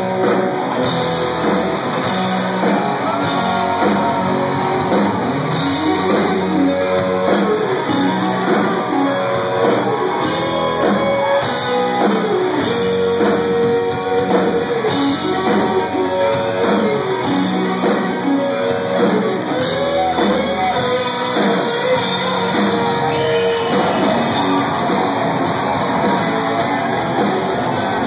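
Live rock band playing loud: a Les Paul-style electric guitar carries a moving melody line with long held notes over bass and drums.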